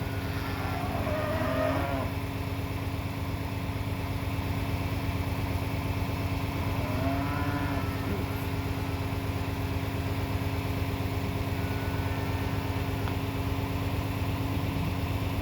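John Deere tractor engine running steadily, a constant low drone loud enough to mask distant thunder.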